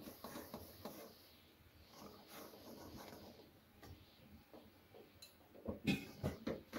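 Rice flour poured from a steel plate into hot water in a metal wok: faint soft rustling and fizzing. Near the end, a metal ladle starts stirring in the wok with a quick run of knocks and scrapes.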